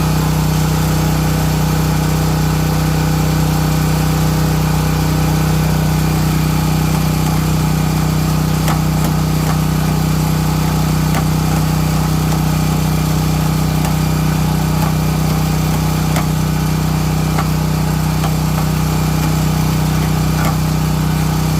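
Small portable generator engine running steadily at a constant speed, with a few faint ticks over it.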